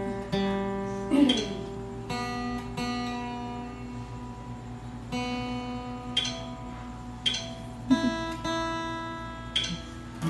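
Acoustic guitar being tuned: strings plucked and strummed and left to ring, with a note sliding in pitch twice as a tuning peg is turned.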